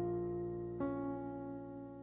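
Background music: slow keyboard notes, held and fading, with a new note struck a little under a second in.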